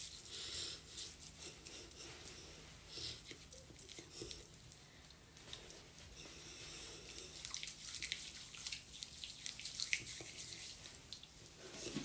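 Wet hands rubbing and patting a facial cream or cleanser over the skin: soft, squishy, crackly little clicks, quiet and irregular, getting busier in the second half.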